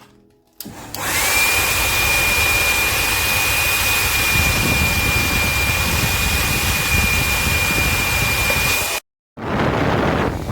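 Remington D1500 travel hair dryer switched on and running: a loud, steady rush of air with a high whine that climbs briefly as the motor spins up, then holds. The sound cuts out abruptly for a moment near the end and comes straight back.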